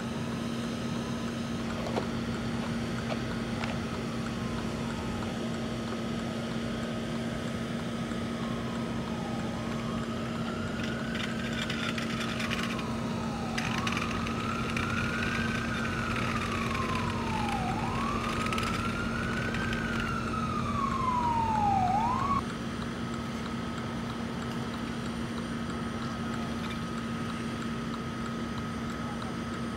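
An emergency vehicle's siren wails in repeated rising and falling sweeps. It grows louder as the vehicle approaches, then cuts off suddenly. A steady engine drone runs underneath throughout.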